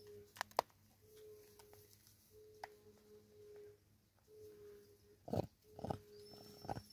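Scattered sharp clicks and knocks as a vervet monkey feeds at a cut plastic-bottle seed feeder, the loudest a cluster of three about five to seven seconds in. Under them a steady low hum breaks off and resumes every second or so, and a thin high whistle sounds near the end.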